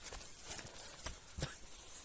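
Footsteps of hikers walking up a forest trail, about two steps a second.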